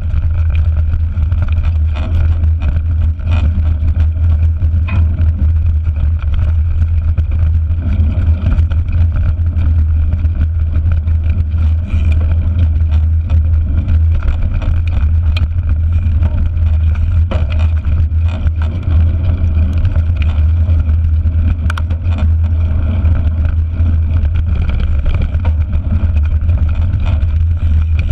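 Steady low rumble of wind and rolling noise on a bike-mounted GoPro as a mountain bike rides a dirt track, with scattered small knocks and rattles from the bike over the rough ground.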